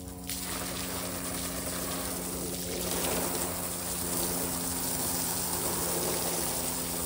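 Garden hose spraying water onto a pleated pool filter cartridge and the concrete beneath it: a steady hissing splash that gets louder just after the start and again about three seconds in.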